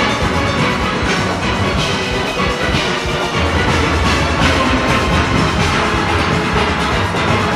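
A full steel orchestra playing: many steelpans ringing together over drums and percussion.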